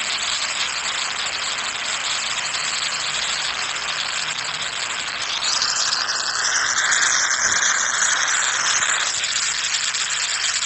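Explosion sound effect: a long, steady rushing noise that grows louder about five and a half seconds in, with a wavering high tone for a couple of seconds in the middle.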